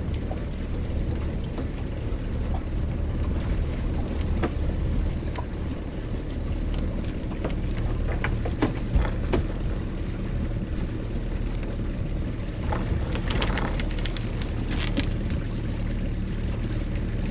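Rope of a string of lobster pots being hand-hauled into a small boat over a steady low drone of the boat's idling outboard motor, with scattered knocks of rope and gear and a burst of splashing water about thirteen seconds in as a pot comes up to the side.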